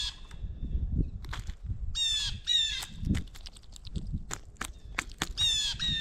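Red-bellied woodpecker giving its short rolling churr call in three bouts: one note at the start, two about two seconds in, and two more near the end. Sharp taps and low thumps of birds pecking and shuffling on the peanut-filled feeder tray sound in between.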